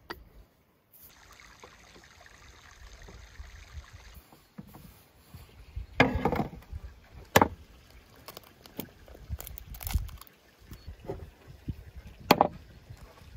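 A metal rolling pin rolls over dough on a wooden board with a low, steady rumble. In the second half come several sharp knocks and taps on the wooden table, the loudest about halfway through, again a second later and near the end, as the rolling pin and bowls are set down and handled.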